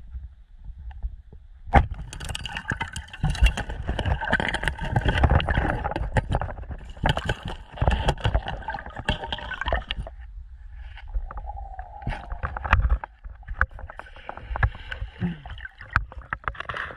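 Underwater sound through an action camera: a sharp crack about two seconds in as a pole spear strikes a fish, then several seconds of rumbling, bubbling and clicking as the speared fish thrashes and almost works free. More splashing near the end as the diver surfaces with it.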